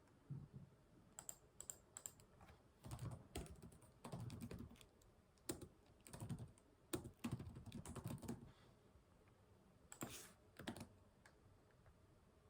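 Computer keyboard typing in irregular bursts of quick keystrokes, pausing for about a second and a half near the end before a few more keys.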